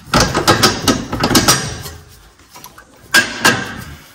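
Sharp metal clicks and knocks from hands and tools working the strut-to-knuckle joint of a car's front suspension: a quick irregular run over the first second and a half, then another short burst a little after three seconds.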